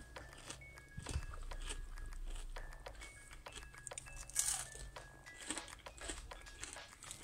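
Crunching of crispy breaded fried onion rings, several sharp crackles with the loudest about four and a half seconds in, over light background music with short bright notes.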